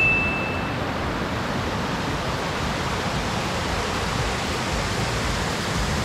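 Steady rushing of a mountain stream's rapids pouring over granite rocks. A short high tone sounds at the very start.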